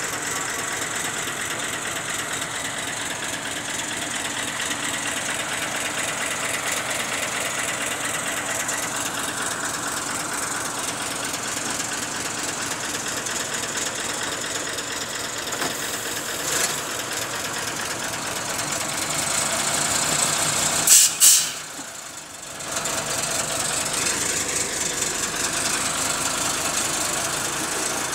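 An engine running steadily with an even low pulse. About two-thirds of the way through come two sharp loud knocks, and the sound briefly dulls afterwards.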